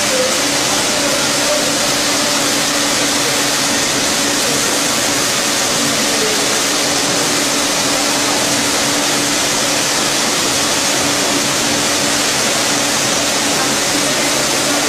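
Automatic sugar packaging machine running: a loud, steady hiss with a constant low hum.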